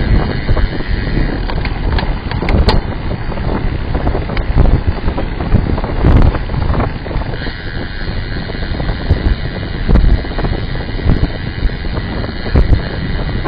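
Wind buffeting the microphone of a bike-mounted camera on a moving road bike, a loud, uneven low rumble mixed with road noise, with a few sharp knocks from bumps in the path.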